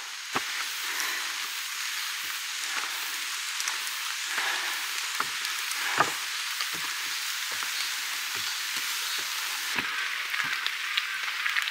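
Steady rain hissing on the forest leaves, with scattered light knocks of footsteps on wooden deck stairs.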